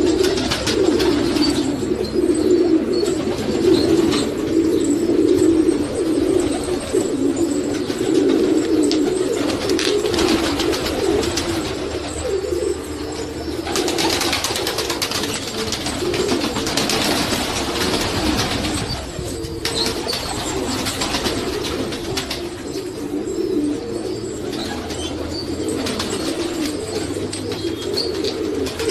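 A flock of black Iranian (Zagh) pigeons cooing together, many low coos overlapping into a continuous chorus. A stretch of higher rustling noise runs through the middle.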